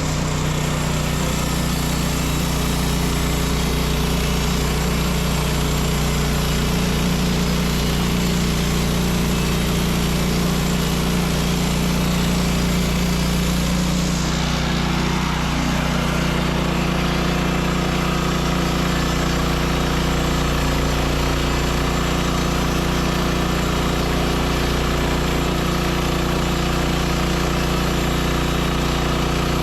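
Gas engine of a Woodland Mills HM126 portable bandsaw mill running steadily under load as the band blade saws red oak. About halfway through, the higher sawing hiss falls away while the engine keeps running.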